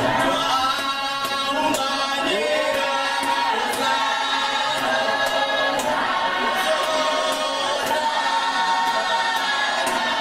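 A church choir singing unaccompanied: a lead voice on a microphone with the group answering. Hand claps keep a steady beat, about one every 0.7 seconds.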